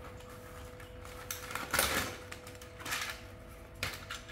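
Handling of a plastic Paw Patrol toy truck and its cardboard box: scattered clicks, taps and rustles, the loudest a little under two seconds in, over a faint steady hum.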